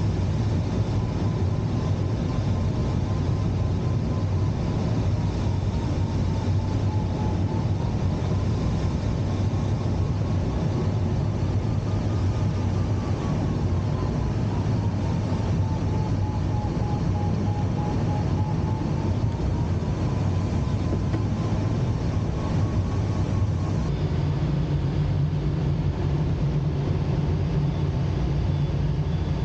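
Steady airflow noise and a low engine drone inside a glider cockpit under tow. A thin tone wavers slowly up and down in pitch and stops about 24 seconds in, when the low drone changes.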